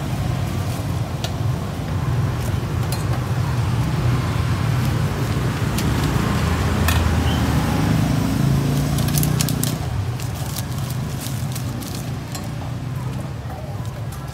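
Road traffic passing close by: a steady low engine hum that swells for several seconds in the middle, with scattered sharp clicks and knocks over it.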